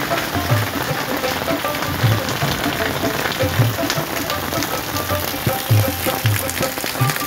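Heavy rain falling steadily, with background music carrying a regular low beat over it.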